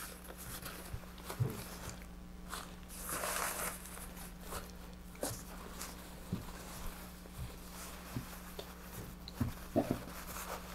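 Parachute fabric rustling and swishing as it is gathered and folded by hand, with a few soft knocks against the tabletop. A steady low hum runs underneath.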